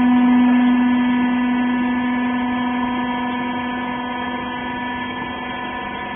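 Hydraulic rag baler's power unit running: a loud, steady hum on one pitch, easing slightly in level toward the end.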